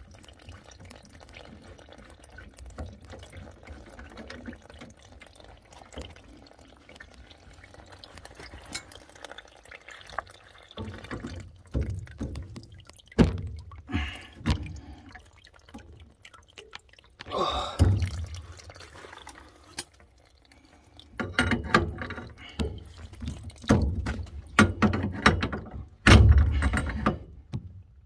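Water dripping and trickling from the opened joints of a brass three-port valve on central-heating pipework. About ten seconds in, sharp knocks and thuds of hands and tools on the metal fittings begin, and they come more often toward the end.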